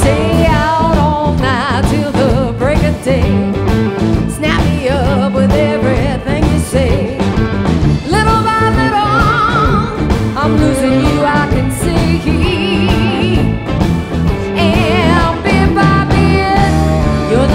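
Blues band playing live, with a woman singing lead over drums and guitars; her long held notes waver with vibrato.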